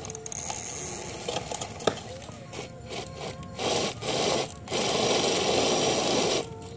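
Electric drive motor and gears of a large RC rock crawler whirring under load as it tows a child on a trailer. It comes in strongly about three and a half seconds in, drops out briefly, then runs for nearly two more seconds before cutting off.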